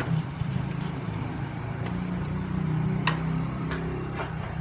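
A steady low mechanical hum, with three light clicks or taps from about three seconds in.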